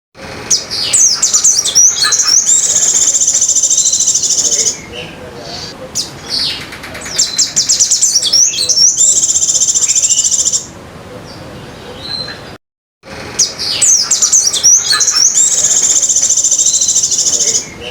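A tutored sogon songbird singing white-eye (pleci) song in long, very rapid, unbroken high trills. Each of three bouts opens with a few quick varied notes and runs into a sustained trill lasting several seconds, with short pauses between bouts.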